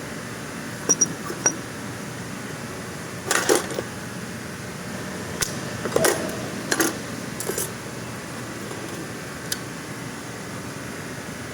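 Metal tools and parts clinking and clanking a few times, with two short ringing pings about a second in and a cluster of knocks in the middle, over a steady mechanical hum.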